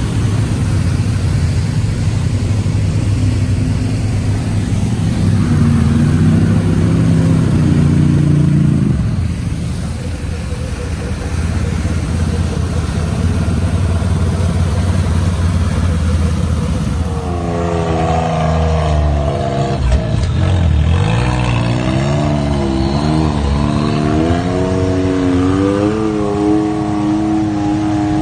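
Off-road vehicle engines running as ATVs and side-by-sides splash through a shallow creek, with rushing water. Later a side-by-side UTV's engine revs up and down repeatedly as it climbs a rock ledge.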